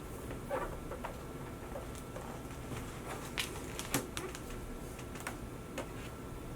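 Scattered light clicks and taps, about eight of them irregularly spaced, from handling a new MacBook Pro and its packaging, over a low steady hiss.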